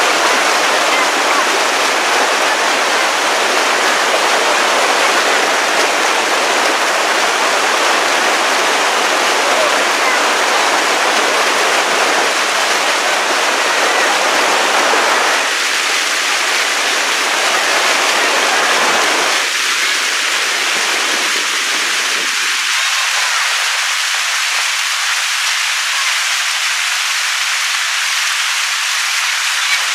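Rushing water of a shallow, rocky mountain river tumbling over stones and small rapids: a steady, loud rush, thinner in the low end from about two-thirds of the way through.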